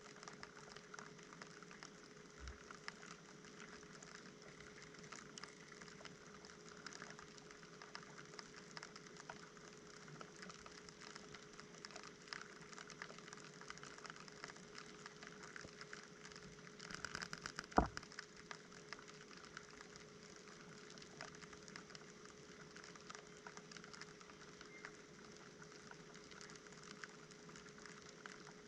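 Inside an LG washing machine drum, heard faintly through a GoPro's housing: a steady hum with light pattering and small ticks, and one sharp knock a little past halfway.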